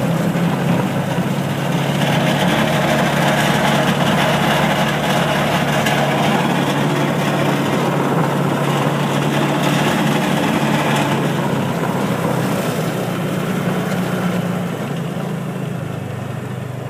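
Engine of a small ride-on farm vehicle running steadily as it is driven, a constant drone that eases a little near the end.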